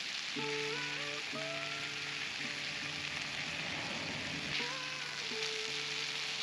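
Background music of slow sustained melody notes changing about once a second, over a steady hiss.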